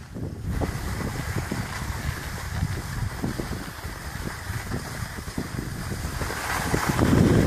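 Wind buffeting the microphone of a camera carried down a ski slope: a gusty low rumble with a hiss over it, growing louder near the end.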